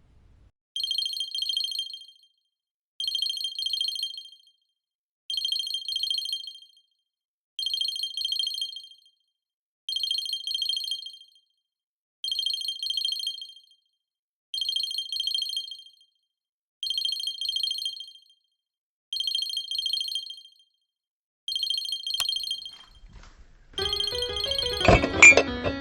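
A high electronic ringing tone, trilling in bursts of about a second and a quarter that repeat ten times, roughly every two and a quarter seconds. Music comes in near the end.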